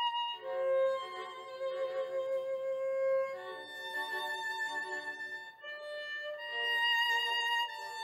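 Instrumental music: a violin playing a slow melody of long held notes.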